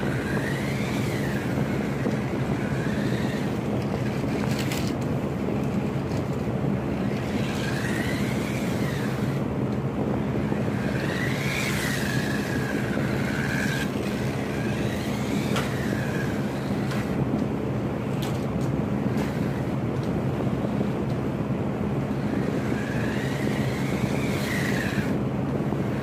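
Remote-control car's electric motor whining up and falling away again in pitch, several times, as it speeds up and slows while drifting across a hard floor, with a few short knocks. A steady low hum runs underneath.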